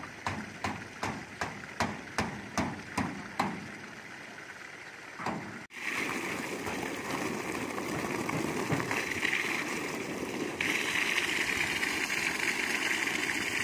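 Water gushing from a PVC pipe into a plastic-lined pond, splashing onto the liner and the water surface. The first few seconds carry a run of about nine even pulses, a little over two a second. After a brief break a steady rushing splash follows, growing louder about three seconds before the end.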